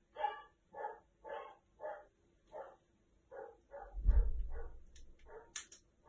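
An animal calling over and over in short, evenly spaced calls, about two a second. A loud low thud comes about four seconds in, and a few sharp clicks follow near the end.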